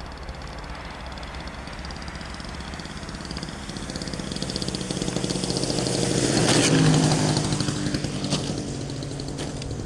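Radio-controlled model Cessna 152 flying past, its small engine buzzing; the sound grows louder, peaks about seven seconds in, then fades as the plane moves away.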